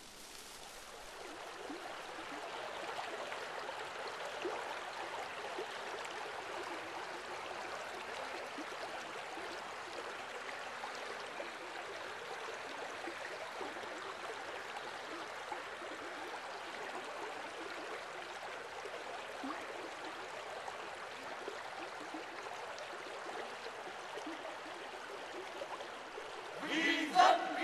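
Steady rush of flowing river water, swelling over the first few seconds and then holding even. Near the end, men's voices break in with a loud shout.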